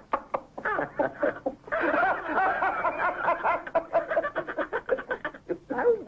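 A man laughing behind his hand, a long run of quick, giggling laughs with a short break about a second and a half in.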